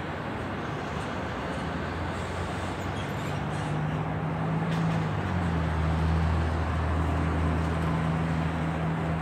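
Street traffic: a steady wash of vehicle noise, with a heavier vehicle's low engine hum growing louder about halfway through and holding to the end.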